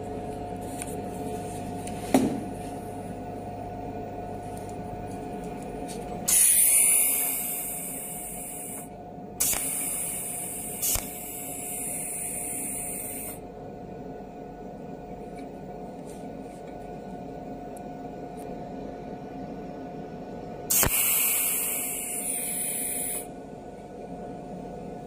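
Cold welding machine's torch welding a steel rod onto a steel sleeve: three spells of high hissing buzz, each a few seconds long and each starting with a sharp click, about six, nine and twenty-one seconds in. A steady machine hum runs underneath.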